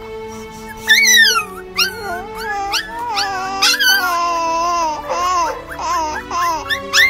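Several puppies whining and yelping in a string of short, high-pitched cries that mostly fall in pitch, the sharpest about a second in and just before the end.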